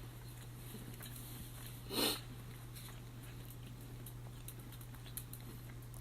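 Quiet chewing of a bite of flaky fruit pie, with small scattered crackles and one short noisy burst about two seconds in, over a steady low hum.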